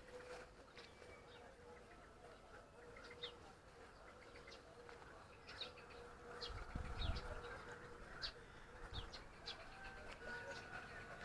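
Faint chirps of small birds, scattered throughout. From about halfway in, a low rumble of wind or handling on the microphone joins them.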